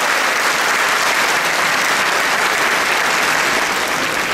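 A large crowd applauding, steady and dense.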